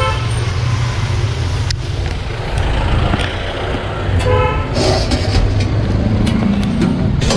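Street traffic with a vehicle horn honking briefly twice, once at the start and again about four seconds in, over a steady low rumble, with scattered clinks of steel utensils.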